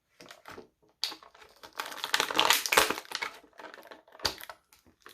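Plastic packaging crinkling and clicking as an action figure and its parts are worked out of the tray. The crackling is loudest about two to three seconds in, with one sharp click near the end.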